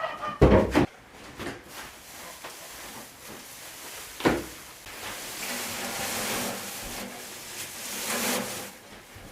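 Two heavy knocks on wood, about half a second and about four seconds in, then several seconds of rustling as hay is moved about in a wooden barn.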